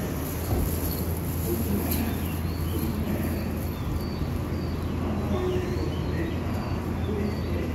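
Steady low hum of a commuter train standing with its doors open, with small birds chirping now and then in short, high calls.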